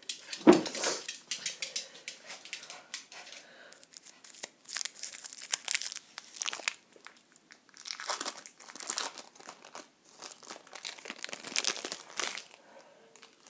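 Plastic treat packaging crinkling and rustling as it is handled and opened, in irregular bursts with short pauses.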